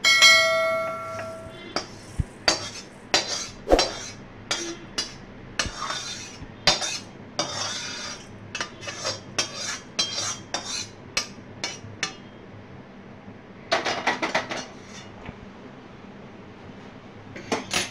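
A metal wok knocks against a stainless steel bowl with a ringing clang, then a metal spoon scrapes and clinks against the bowl, rustling through fried flattened rice (chira) as it is scooped in and stirred. A denser burst of scraping comes near the end, with one last clank.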